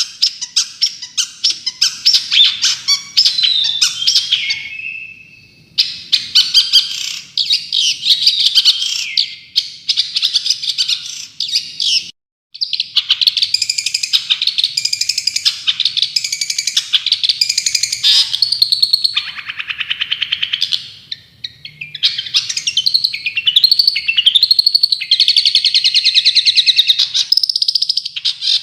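Songbird song from a bird-song training recording: loud, dense, very rapid chattering notes and trills in the fast-firing 'tembakan' style. It breaks off abruptly about twelve seconds in and resumes at once, as an edited loop.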